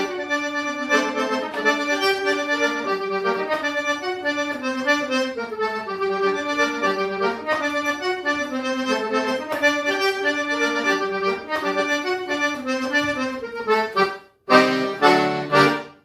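Accordion playing a fast forró melody as the song's instrumental ending, with quick-moving notes. Near the end it breaks off briefly, then plays closing chords.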